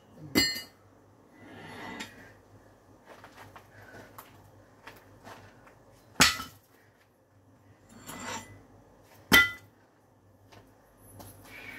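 Iron weight plates clanking against the barbell sleeve and each other as they are stripped off the bar: three sharp metallic clanks that ring briefly, with quieter scraping and shuffling between them.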